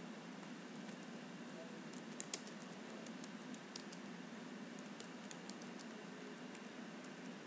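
Computer keyboard being typed on: a run of irregular clicking keystrokes starting about two seconds in, over a faint steady hiss.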